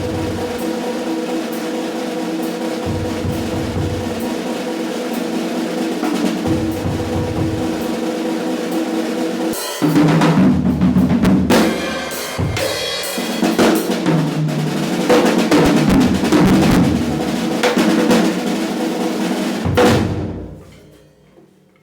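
Drum kit played over steady held musical tones, with the freshly tuned snare among the drums; the playing turns louder and busier about halfway through, then fades out near the end.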